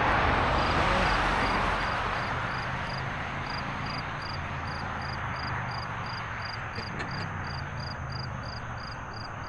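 Steady rush of water pouring over a dam, loudest at first and slowly fading, with an insect chirping high and evenly about three times a second.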